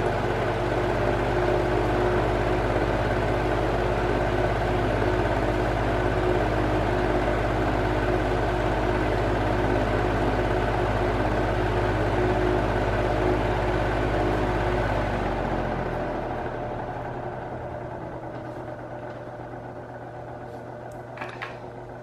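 Arge Twister 60 cm oscillating wall fan running at top speed: a steady motor hum with the rush of air from the blades. About fifteen seconds in, it is switched down to its lowest speed and the sound gradually fades to a quieter level as the blades slow.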